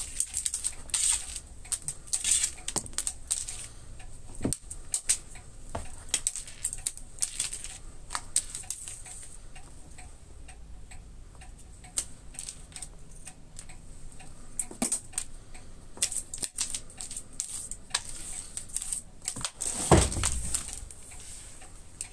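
Small motorised cat toy clicking and ticking rapidly and irregularly across a wooden floor, with a faint steady high whine. Near the end there is one heavier thump as the cat leaps out of its bed.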